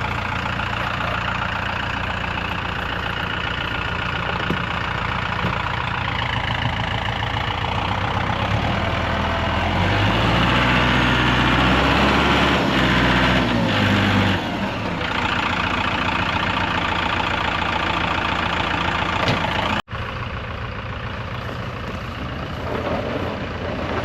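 Heavy vehicle engine running under load as a stuck truck and trailer work out of a ditch. It revs harder for several seconds in the middle, then settles back. Near the end the sound cuts out for a moment.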